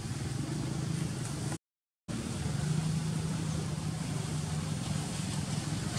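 A steady low engine hum over outdoor background noise. The sound cuts out completely for about half a second, about a second and a half in.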